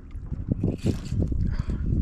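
Water lapping, with wind rumbling on the microphone.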